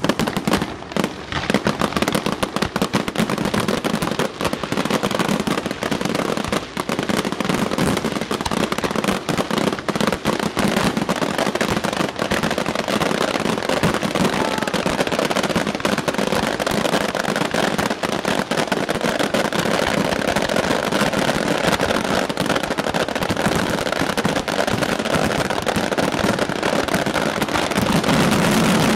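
Fireworks shells bursting close by in a dense, unbroken barrage of overlapping bangs, growing a little louder near the end.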